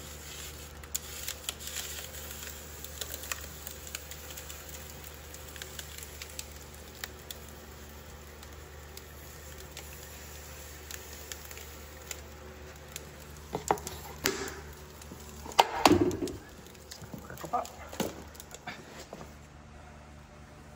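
Liquid nitrogen being poured from a foam container back into a dewar, hissing and crackling as it boils off, over a steady low hum. A handful of sharp knocks and clanks come about 14 to 18 seconds in, the loudest near 16 seconds.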